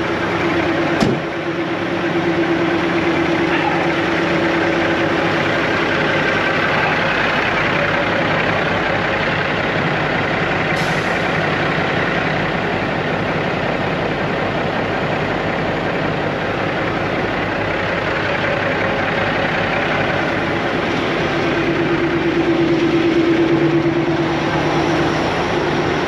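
Diesel semi-truck engines idling, a steady drone with a constant hum, with a single knock about a second in.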